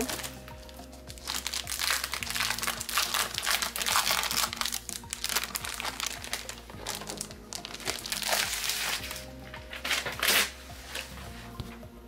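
Clear plastic cellophane wrapping on a chipboard sheet crinkling as it is handled, in irregular bouts, loudest in the first half. Soft background music is heard underneath.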